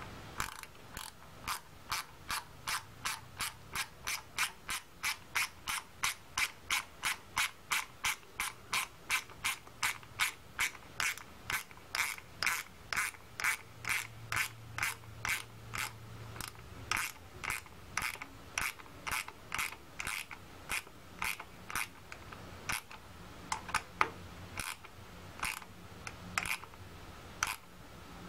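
A small hand ratchet clicking steadily, about two to three clicks a second, as a radiator hose clamp is screwed tight. Near the end the clicks come slower and unevenly, with pauses, as the clamp snugs up.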